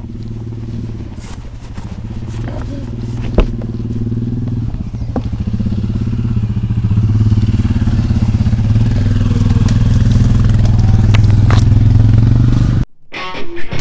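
Dirt bike engine running steadily on the trail, growing louder over the first few seconds, with a few sharp knocks; it cuts off abruptly near the end.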